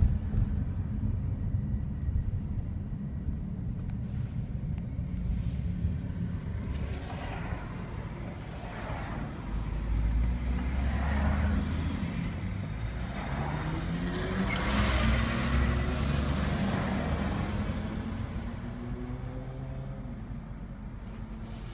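Inside a Long Island Rail Road commuter train car: steady low rumble of the train running, with a whine that climbs steadily in pitch over the second half.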